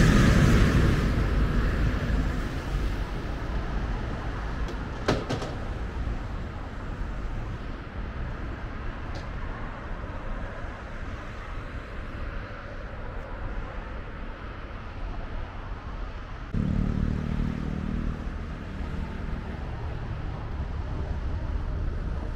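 City traffic: a vehicle passes loudly and fades over the first few seconds, leaving a steady low traffic rumble; about 16 seconds in, a low engine hum comes in.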